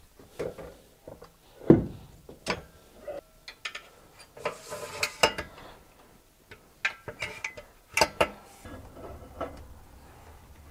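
Metal squat stands set down on a rubber floor mat and a barbell placed on their hooks: a series of metal clanks and knocks, the loudest about two seconds in.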